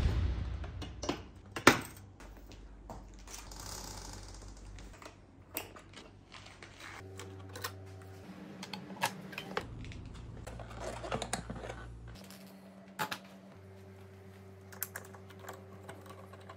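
Scattered light mechanical clicks and ticks at irregular intervals over a low steady hum that shifts a few times.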